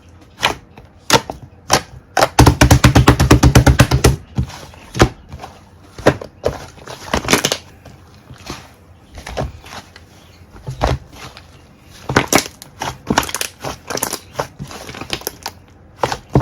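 Slime being squished and pressed by hand, making sharp clicking pops. About two seconds in comes a rapid run of crackling clicks lasting nearly two seconds.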